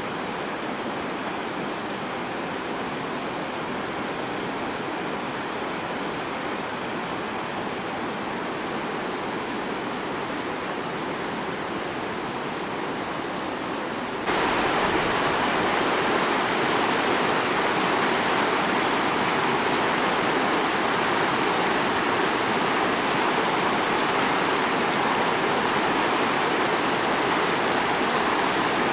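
Mountain river rushing over boulders in rapids: a steady rushing of water that turns louder about halfway through.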